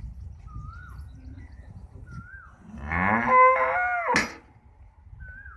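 A single loud cattle moo about three seconds in, lasting about a second and a half and rising in pitch as it starts.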